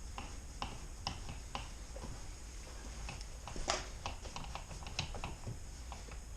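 Light, irregular clicks of a T20 Torx driver being fitted into and turning the locking screw of a car door handle, with one louder click a little past the middle.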